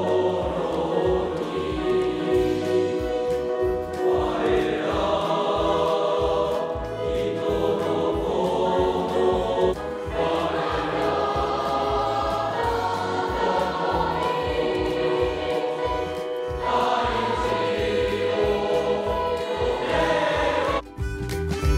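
A large mixed choir of graduating junior high school students singing together in sustained chords. The singing drops away briefly near the end.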